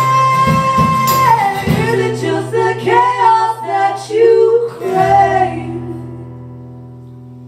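Live acoustic folk song ending: female voices hold and move through the last sung notes over acoustic guitar, then the final chord rings on and fades away.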